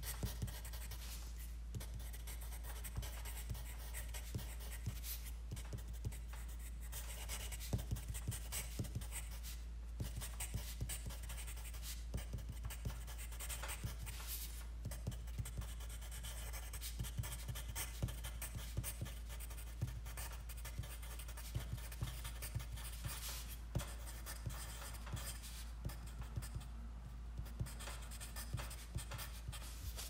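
Writing on paper: irregular scratching strokes of a writing tip, continuing throughout, over a steady low hum.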